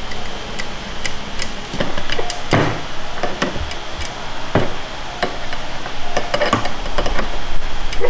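Wing-handled screws of Universal Clamp metal bar clamps being turned and tightened by hand on a glued wooden cutting-board blank: irregular sharp metallic clicks and clinks as the cast handles knock against the screws and clamp bodies.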